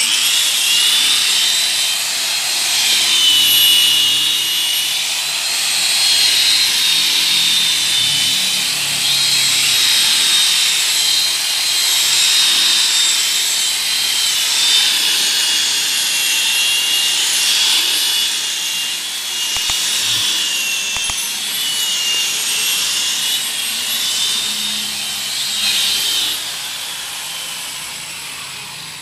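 Electric rotary polisher with a wool buffing pad running against a car door's paint: a high whine that wavers as the pad is pressed and moved, over the hiss of the pad rubbing, while it buffs scuff marks out of dull paint. The whine fades and the sound eases off near the end.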